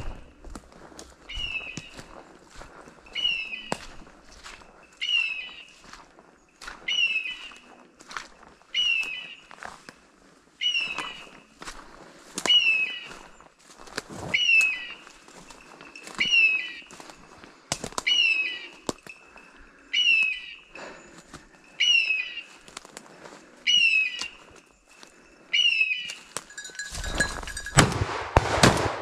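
Hunting dog's beeper collar sounding a short high beep about every two seconds while the setter quests, over footsteps rustling in dry leaf litter. Near the end the beeping stops and a sudden loud flurry of wingbeats breaks out, a woodcock flushing close by.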